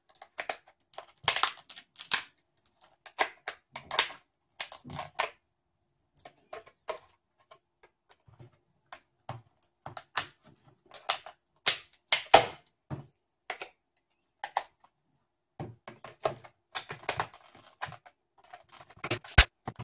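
Plastic case of a laptop battery pack being pried apart along its seam with a hawkbill knife blade: irregular sharp clicks and cracks as the plastic seam gives, in quick clusters with short pauses between.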